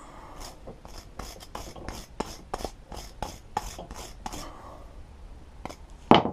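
Hand wire brush scrubbing a spark plug to clean oil off it, in quick brushing strokes about three a second that stop after about four seconds. A single loud thump comes near the end.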